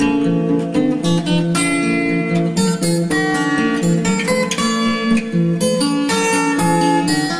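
Background music: acoustic guitar, plucked and strummed, playing steadily.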